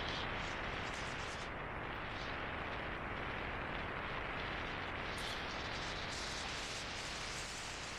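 Heavy wind buffeting on a small camera microphone while riding an electric bike downhill: a steady, rough rush of noise that eases slightly near the end.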